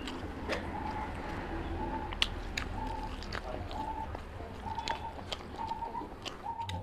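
Wet clicks and smacks of a hand mixing rice with curry on a steel plate and of close-miked chewing. In the background a short, steady high tone repeats every second or so.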